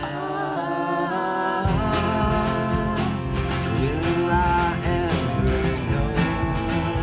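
Americana indie rock band playing live: a sustained, gliding melodic line over guitar and drums, with the bass dropping out briefly and coming back in about a second and a half in.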